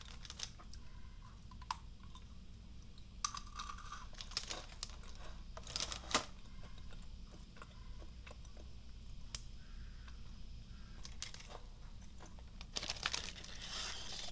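Crisp crunching of Glico Pretz butter-flavour pretzel sticks being bitten and chewed, a few sharp cracks in the first half. Near the end the foil snack wrapper crinkles as another stick is pulled out.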